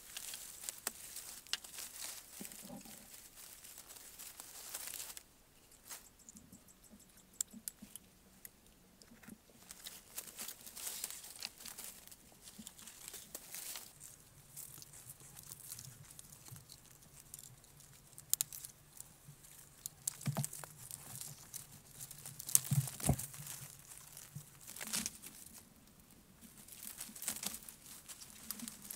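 Leaves and twigs rustling and crackling as a person pushes through dense undergrowth and handles leafy branches, with scattered sharp snaps. The rustle is thick for about the first five seconds, then thinner and patchier.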